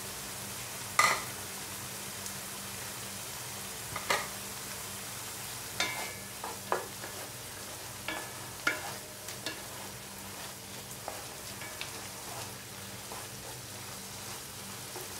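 Ground beef and bitter melon frying with a steady sizzle in a nonstick pan. Wooden spatulas scrape and knock against the pan as the mince is stirred, once or twice at first and then many times from about six seconds in.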